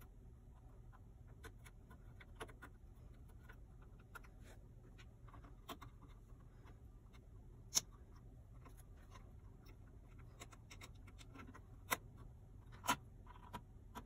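Scattered light clicks and taps of ribbon cables and wire connectors being pressed back into a TV's main circuit board, with a sharper click about eight seconds in and two more near the end. A low steady hum runs underneath.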